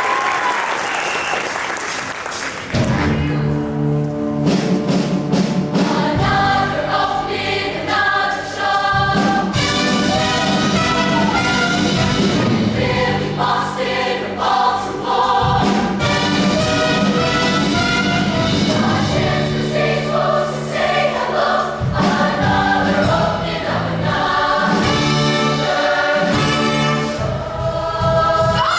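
Audience cheering dies away, and about three seconds in a show choir starts singing with full instrumental accompaniment, holding long sustained chords.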